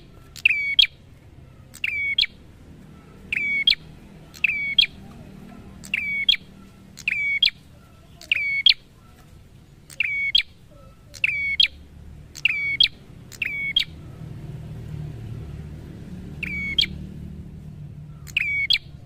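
A caged tailorbird repeats one short, sharp call over and over, about once every second or so. The calls pause for a couple of seconds before the last two.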